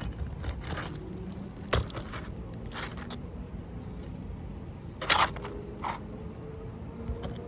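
Asphalt ridge shingles being scraped and pried up from a roof, crackling, with a few sharp knocks, the loudest about five seconds in.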